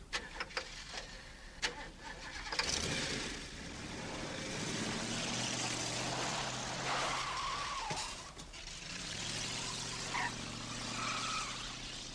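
Several sharp clicks, then a burst of noise about two and a half seconds in as a Leyland P76 car's engine starts and pulls away. The engine then runs steadily as the car drives off down the highway.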